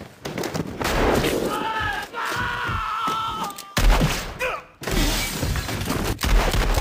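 Film gunfight sound: a drawn-out yell over gunfire and impact noise that cuts off abruptly, a loud hit just after, then heavy gunshots with deep booms.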